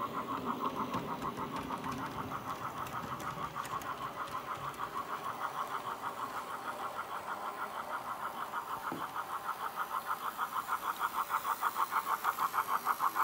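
Dapol model GWR Terrier tank locomotive running along model track: a fast, even beat of pulses that grows louder as it draws near.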